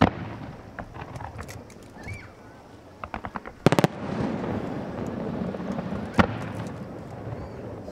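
Aerial fireworks bursting: a sharp bang at the start, a string of crackling pops around three seconds in, a rapid cluster of loud bangs just before four seconds, and another bang about six seconds in, with rumbling echoes between the blasts.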